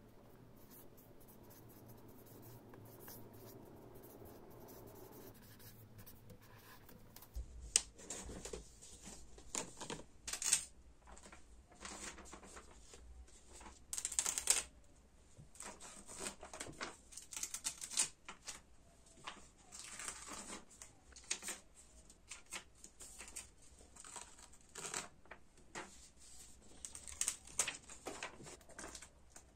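Paper notes and sticky notes being peeled off a wall: irregular sharp ripping, rustling and crinkling of paper that starts about seven seconds in, loudest about halfway through.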